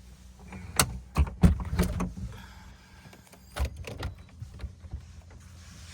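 A run of sharp clicks and knocks over a steady low hum. They come in a cluster in the first two seconds, the loudest about a second and a half in, with another knock near the middle.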